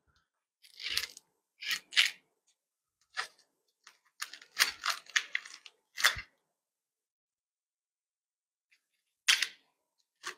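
Cellophane wrapping being torn and pulled off a metal motorcycle crash bar: short bursts of crinkling and crackling plastic, bunched in the first six seconds, then a pause of about three seconds before two more bursts near the end. One burst about six seconds in carries a low thump.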